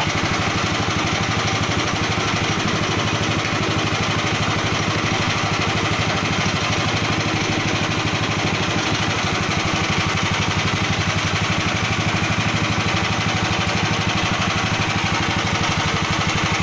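Fish-feed pellet mill running steadily as it presses the mixed organic waste into pellets: a constant motor drone with a fast, even pulse that does not change.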